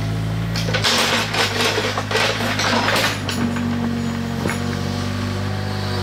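Mini excavator's diesel engine running steadily. About a second in comes a clattering, scraping stretch of some two seconds, then a few sharp knocks.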